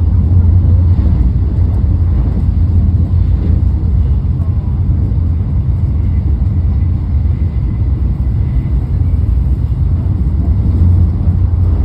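Steady low rumble of a Shinkansen bullet train's cabin while running at speed.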